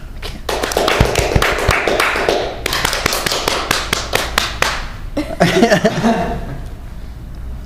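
Small audience clapping and cheering in an applause vote, thinning into a run of evenly spaced hand claps. A short burst of voices comes about five and a half seconds in.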